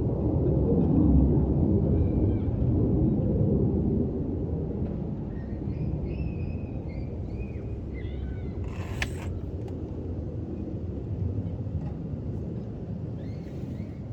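An unexplained deep rumble, loudest for about the first four seconds and then easing off. A few short high chirps come in the middle, and a brief sharp noise about nine seconds in.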